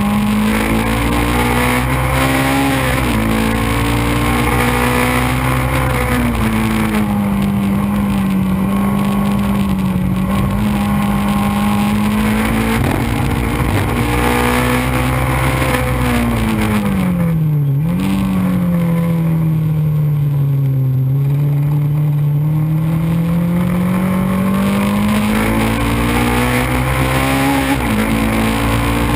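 Onboard sound of a Xenon kit race car's engine under racing load, its pitch climbing and dropping with gear changes and braking, falling lowest about two-thirds of the way through before climbing again. Wind rushes past the microphone throughout.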